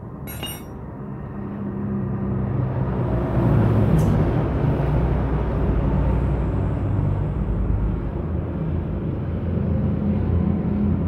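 A vehicle engine running nearby, a low steady rumble that grows louder over the first few seconds and then holds. A short clatter right at the start and a sharp metallic click about four seconds in come from hand tools on the engine.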